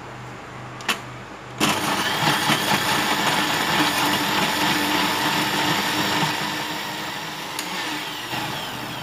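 Electric blender's motor: a click, then it starts suddenly and runs steadily under load, blending mango chunks with a bread-and-milk mixture into a smooth puree. It winds down near the end.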